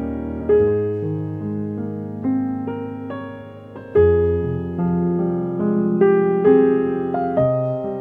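Background piano music: notes and chords struck at an easy pace, each ringing on and fading before the next.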